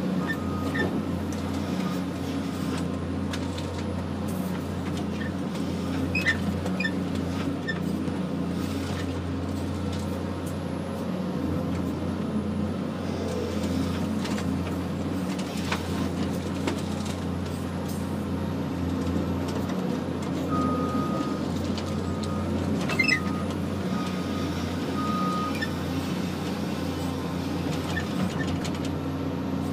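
Cat 568 LL forest machine running steadily under work, heard from inside its cab as the grapple swings and piles logs. A few sharp knocks sound along the way, and a short high beep comes and goes in stretches near the start and again about two-thirds of the way in.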